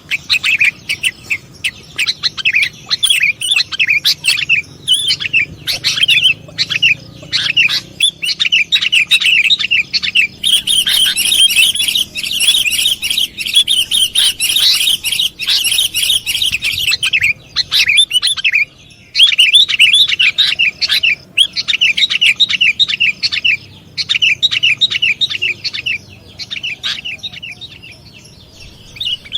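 Sooty-headed bulbul (kutilang) calls used as a lure call: a dense run of quick, chattering chirp phrases, busiest and brightest in the middle, with a short lull after that and then separate bursts of chirps.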